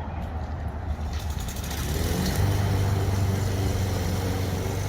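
Lawnmower engine running, its pitch rising and its level climbing about two seconds in, then holding steady.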